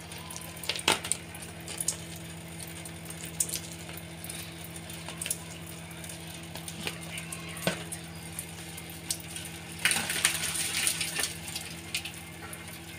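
Manchurian gravy simmering in a steel kadai, with scattered small pops and clinks over a steady low hum. About ten seconds in, fried Manchurian balls are tipped off a plate into the gravy: a second or so of plate-on-pan clinking and splashing.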